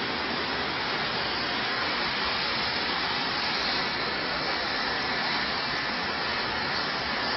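Saab JAS 39 Gripen's Volvo RM12 turbofan jet engine running at idle, a steady rushing hiss with a faint high whine coming in about halfway through.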